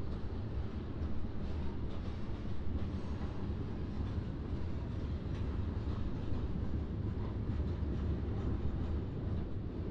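Freight train passing, with a steady low rumble of rolling railcars.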